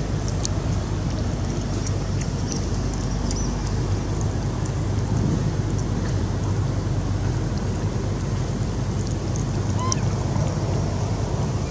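Steady wind rumble buffeting the microphone, with a short rising squeak about ten seconds in.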